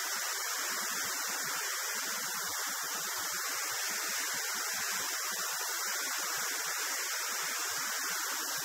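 Steady rushing airflow over a camera mounted outside a light aircraft in flight, heard as an even hiss with no clear engine note.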